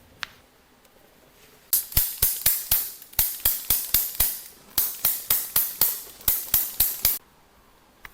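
A single click, then a rapid run of sharp percussive strikes, about four or five a second, with a short break midway.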